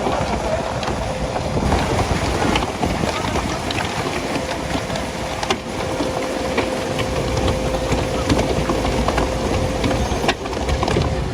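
An engine running steadily, with a thin steady whine and scattered clicks and knocks over it.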